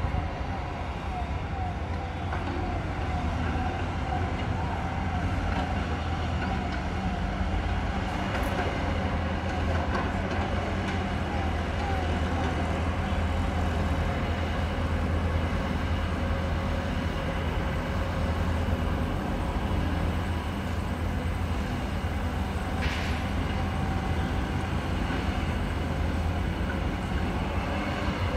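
Diesel earthmoving machinery, a crawler excavator and dump trucks, running steadily: a continuous low engine drone with no breaks.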